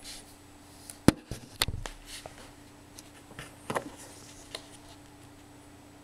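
Handling noise: a few irregular knocks and clicks with some rustling, the loudest a sharp knock about a second in, over a faint steady hum.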